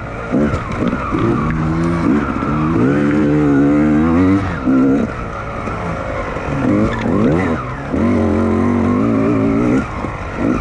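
Dirt bike engine revving in repeated bursts of throttle, the pitch climbing and dropping with each burst and easing off briefly between them.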